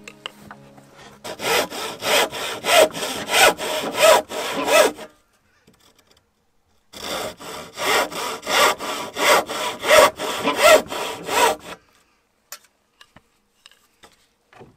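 Hultafors hand saw crosscutting a wooden beam in quick, even strokes, about four a second. It cuts in two runs of roughly four seconds each, with a pause of about two seconds between them.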